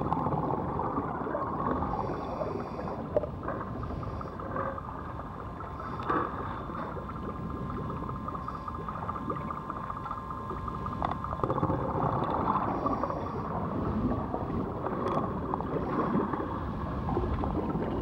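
Underwater ambience: a steady low rumble and gurgling water noise with a faint, even hum.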